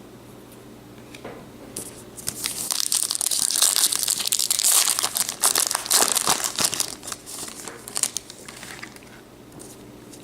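A 2018 Topps baseball card pack wrapper being torn open and crinkled by hand. Dense crackling starts about two seconds in, is loudest in the middle, and tapers off a couple of seconds before the end.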